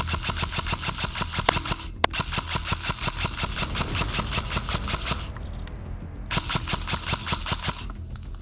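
Airsoft electric gun firing full-auto: a long burst of rapid, evenly spaced shots lasting about five seconds, then a shorter burst of about a second and a half, with two sharp cracks during the first burst.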